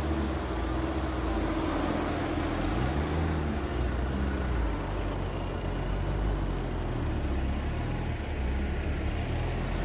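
A motor vehicle driving, its engine running steadily under road noise, with the engine pitch rising and falling once around three seconds in.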